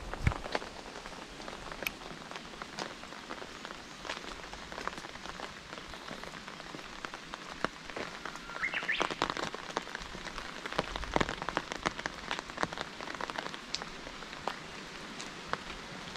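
Rain falling steadily, with irregular sharp taps of raindrops landing close by.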